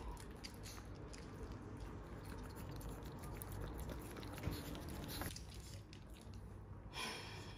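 Chihuahua eating crumbs off a wooden floor: faint licking and chewing with small clicks. A brief rustle about seven seconds in.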